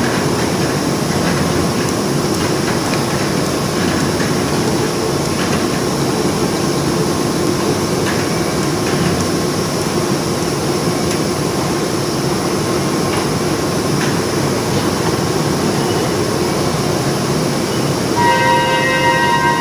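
Steady, loud running noise of machinery in a prestressed-concrete strand production hall, with a few faint knocks through it. Near the end, a steady pitched tone starts over the noise.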